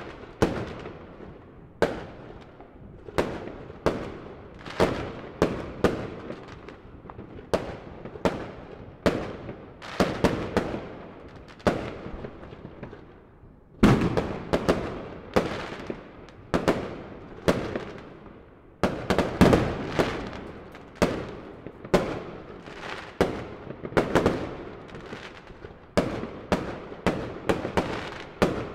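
Aerial fireworks bursting in quick succession: sharp bangs about one or two a second, each trailing off in an echo. There is a short lull just before halfway, broken by a loud bang.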